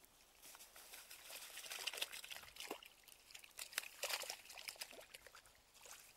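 Faint splashing and trickling water as a fishing keepnet is dipped and tipped out in shallow water to release small fish. The splashes come irregularly, loudest about two and four seconds in.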